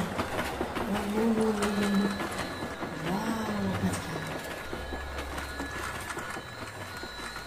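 Battery-operated toy steam locomotive running on plastic track: its small motor whirring with a thin steady whine, and its wheels clicking along the track.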